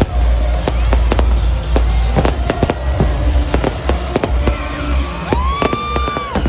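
Fireworks going off in quick succession: many sharp bangs and crackles over a steady deep rumble of booms. Near the end a high whistle-like tone rises, holds for about a second, then drops away.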